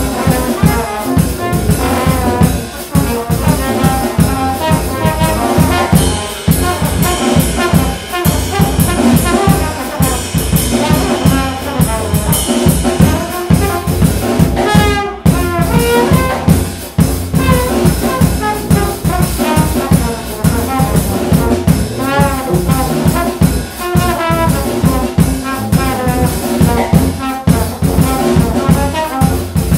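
Brass ensemble of trumpets, trombones and tuba with a drum kit playing a composed piece: held and moving brass lines over a busy drum rhythm. About halfway the music breaks off briefly and comes back in with a quick upward run.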